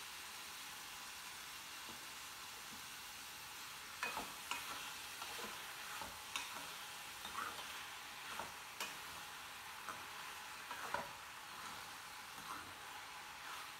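Diced brinjal and ridge gourd sizzling in oil in a steel kadai. From about four seconds in, a steel ladle stirs them, scraping and knocking against the pan at irregular moments.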